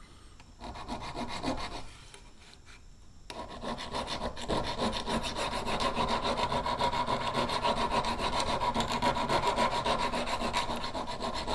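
Flat hand file rasping along the edge of a Simmons Interceptor steel broadhead, sharpening a dull blade. A short spell of strokes about a second in, then continuous steady filing from about three seconds in.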